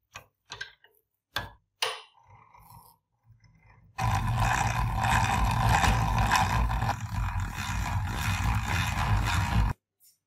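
A few sharp clicks as a twist bit is fitted in the chuck of a hand-cranked Polish hand drill, then the drill boring into a wooden board: a steady grinding whir of the crank gears and the bit cutting wood for about six seconds, which cuts off abruptly.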